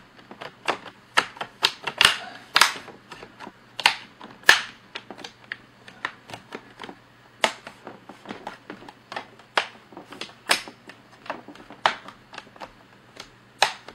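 Plastic display bezel of an ASUS G750JW laptop being pressed back onto the screen lid, its clips snapping into place in a string of sharp, irregular clicks, a few of them much louder than the rest.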